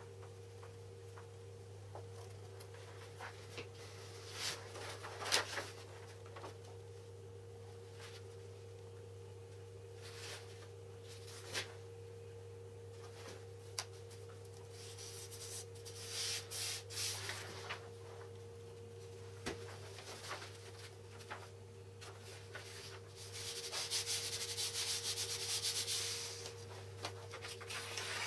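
Paper rubbing against a laminate board: a glue stick spread over the board, then a paper template pressed and smoothed flat by hand, with scattered light taps and rustles and two stretches of louder scratchy rubbing. A steady low hum runs underneath.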